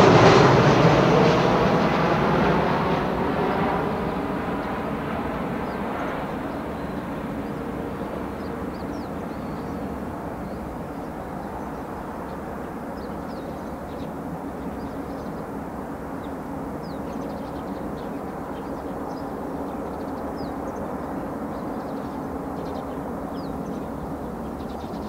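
Boeing 737-700 airliner's twin CFM56-7B turbofans passing low overhead on final approach. The jet noise is loud at first with a sweeping whoosh, then fades over several seconds into a steady distant rumble as the aircraft heads away toward the runway.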